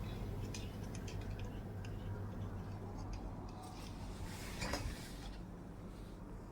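Light clicks and ticks of small metal repair tools working on a smartphone, with a short hiss about four and a half seconds in, over a steady low hum.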